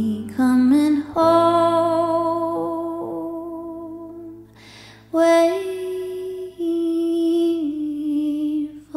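Background music: a slow song with a voice holding long, sustained notes over soft accompaniment, with a short break about halfway through.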